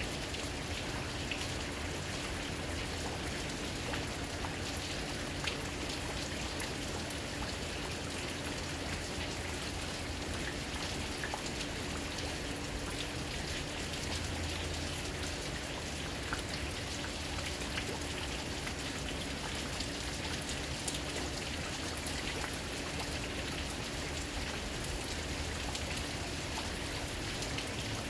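Steady rain falling, an even hiss dotted with many small, sharp drop ticks and splashes close by.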